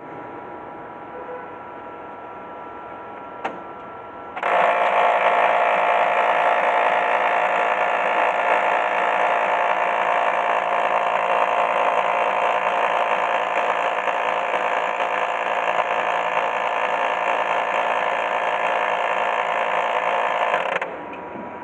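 Xerox photocopier humming, a click, then its drive mechanism starting up with a loud, steady mechanical gear noise that runs for about sixteen seconds before stopping. This is the noise of the machine's malfunction.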